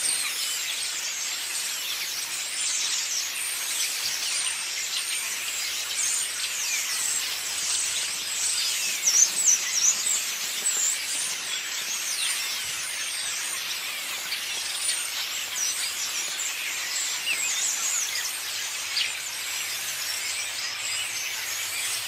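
Dense chorus of many small birds in a flock, chattering and twittering all at once: a constant mass of high chirps and squeaks, with a few louder calls about nine seconds in.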